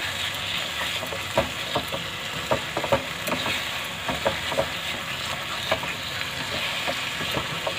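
Carrot halwa sizzling in a nonstick kadhai while a spatula stirs it, with irregular taps and scrapes of the spatula against the pan about once or twice a second. The mixture is wet with the water released by the sugar just added, frying on a low flame until it dries.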